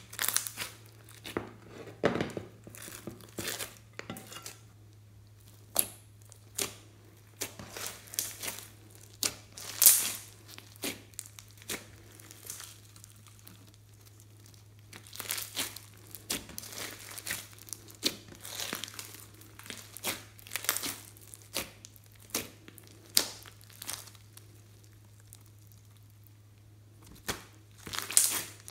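Hands kneading, stretching and squeezing a large mass of slime mixed with foam beads, making irregular sticky crackles and pops, with a quieter pause of a few seconds near the end.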